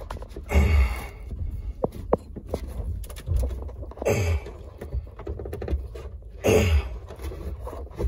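Cable and hand rubbing and scraping against the carpet as a control cable is worked through a carpeted compartment wall, in three short bursts with a few small clicks between.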